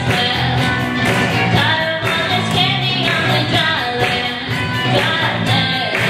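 A children's rock band playing live: a girl singing lead over electric guitars and a drum kit keeping a steady beat.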